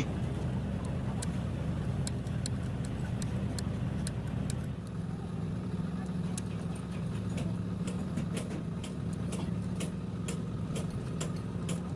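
An engine running steadily at idle, with scattered light clicks over it.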